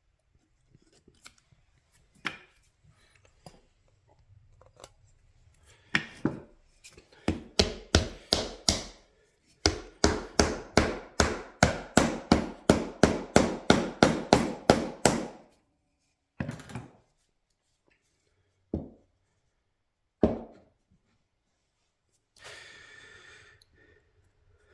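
Wooden mallet-head parts being tapped home with a mallet: a quick run of sharp wooden knocks, about three a second, with a short pause partway, then a few single knocks.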